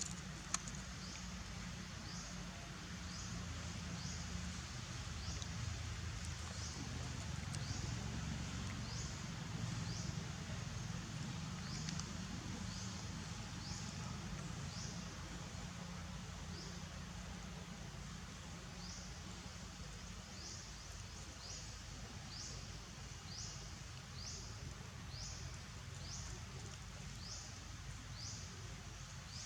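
Outdoor ambience: a short, high chirp repeats about once a second over a steady low rumble, with one sharp click about half a second in.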